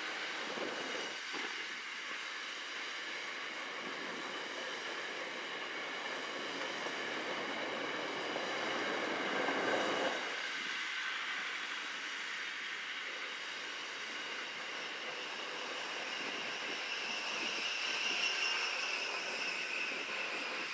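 Container wagons of a long freight train rolling past on the track: a steady rush of steel wheels on rail, with a thin high squeal from the wheels. It swells about halfway through and again near the end.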